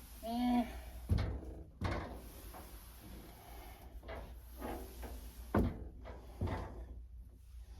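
Heavy piece of furniture being shoved and shifted across carpet, giving about six irregular dull knocks and bumps.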